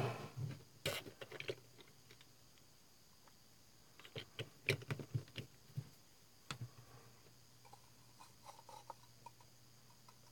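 Small, scattered clicks and taps from handling a plastic dropper bottle of water and a paintbrush on a workbench, with a quick cluster of taps about four to five seconds in.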